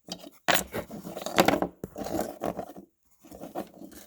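Handling noises: a string of irregular knocks, scrapes and rustles as things are moved about and set down on a surface.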